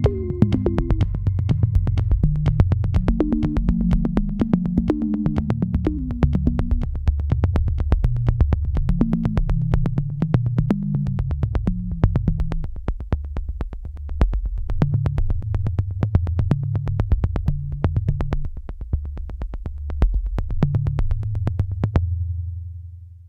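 Electronic background music: a steady ticking beat over a synthesizer bass line. Near the end the beat stops and a low bass note holds and fades out.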